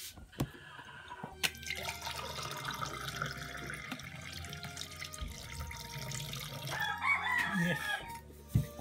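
Coconut water trickling from an opened coconut into a glass, with two short knocks in the first second and a half. A rooster crows about seven seconds in.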